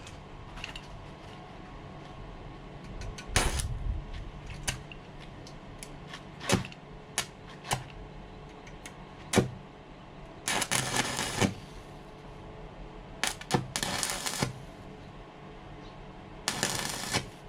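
Wire-feed (MIG) welder filling holes in steel tube, laying short crackling bursts of arc about a second long, three times in the second half. Single sharp clicks come between the bursts, over a steady hum.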